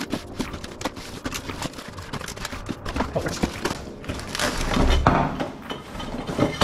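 Taped cardboard packaging being pulled and torn open: a continuous run of crackling, tearing and scraping of cardboard, louder about four to five seconds in.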